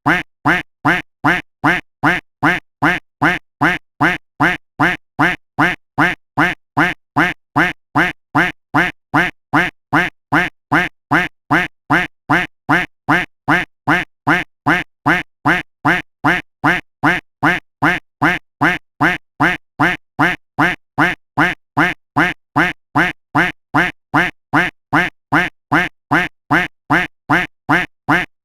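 A single duck quack sound effect looped over and over, about two identical quacks a second at an even pace.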